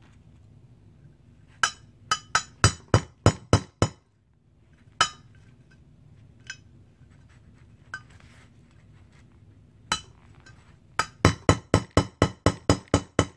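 Hammer striking the pin of a Magpul trigger guard to drive it into the ears of a stripped AR-15 lower: sharp metallic taps with a short ring. A run of about eight quick strikes comes near the start, then a few single taps, then a longer run of about a dozen strikes at roughly five a second near the end. The pin is a tight fit, which the owner feels is too big for its hole.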